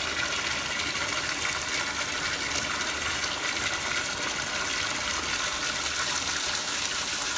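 Bathtub faucet running at high pressure: a steady gush of water pouring into a filling tub and splashing over a bubble bar held in the stream.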